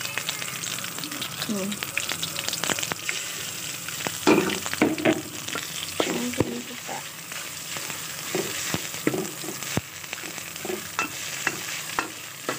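Shallots, spice paste and shredded chicken sizzling in hot oil in a stainless-steel wok, stirred with a metal spatula that scrapes and clinks against the pan again and again.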